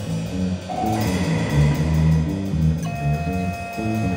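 Electric bass, drums and modular synthesizer playing together: the bass moves through a line of short low notes over the drums, while the synthesizer holds steady high tones, a new one entering about three seconds in.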